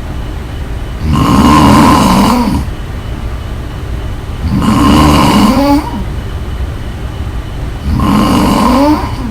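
A person snoring loudly in a steady rhythm: three long rattling snores about three and a half seconds apart, the last two ending in a short rising squeak, with quieter breathing noise between them.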